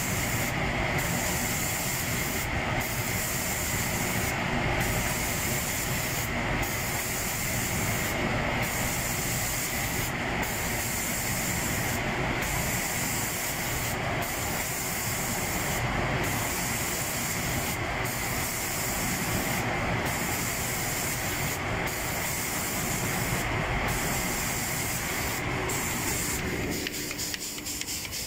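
Automatic spray-painting machine spraying cabinet doors: a steady spray hiss over a low machine rumble, with the hiss cutting out briefly about every two seconds. About a second and a half before the end the rumble drops away and a quick ticking comes in.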